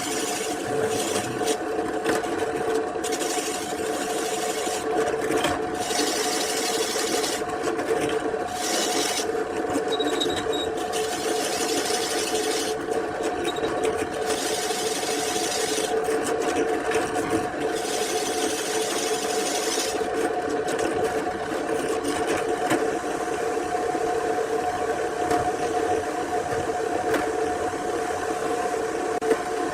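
Small electric woodworking machine running steadily with a constant motor hum, and a higher hiss that comes and goes every second or two as it works the wood.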